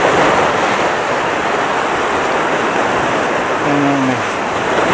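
Sea surf breaking and washing over shore rocks: a steady, loud rushing wash of water.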